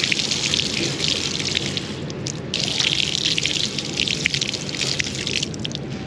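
Outdoor shower water spraying over a spinning reel and splashing on concrete, rinsing the salt water off with fresh water. The spray breaks off briefly about two seconds in, comes back, and stops about five and a half seconds in.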